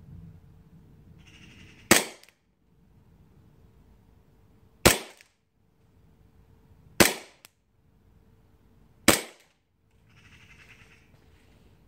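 Tokyo Marui M9A1 gas blowback airsoft pistol firing four single shots a few seconds apart, each a sharp pop with a brief ring-off.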